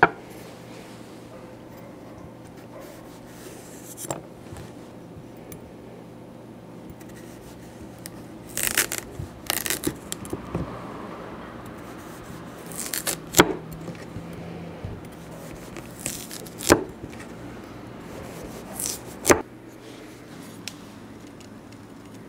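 A Japanese kitchen knife slicing through a raw carrot and striking the wooden cutting board: single sharp chops a few seconds apart, and a short run of scraping cuts about nine seconds in. A faint steady hum sits underneath.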